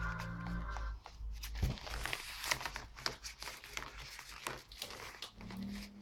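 Intro music stops about a second in; then a sheet of origami paper crinkles and rustles with many small crackles as it is handled.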